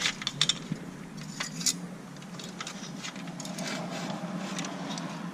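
Small sharp clicks and taps of a soldering iron and tools working on an instrument cluster's circuit board while solder joints are reworked. The clicks come several times in the first two seconds, then fainter scattered crackles follow, over a steady low hum.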